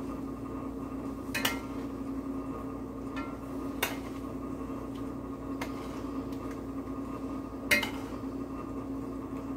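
A spoon clinking against a skillet now and then as sauce is spooned over chicken pieces: a few sharp clinks, three of them louder, over a steady low hum.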